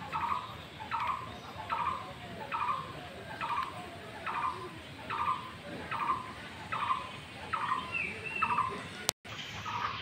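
An animal calling over and over, about once a second; each call is a short harsh note with a sharp start that trails off. The sound cuts out for a moment near the end, then the calls go on.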